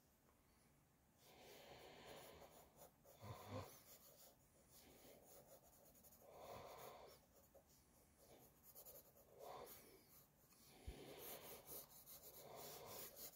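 Pencil scratching across sketchbook paper in short bouts of shading strokes, each lasting a second or so, with brief pauses between. Faint throughout.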